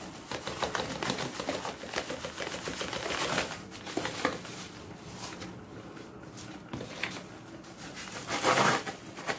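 Salt crunching and rustling under hands as it is rubbed and packed over a slab of raw beef in a plastic container, with more salt poured in from a cardboard carton. There is a gritty patter of fine ticks, with a louder rustle near the end.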